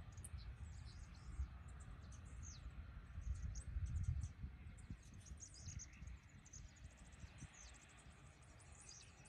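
Wind buffeting the microphone in uneven gusts, strongest about three to four seconds in, with small birds chirping and a rapid, evenly pulsed chirping call near the end.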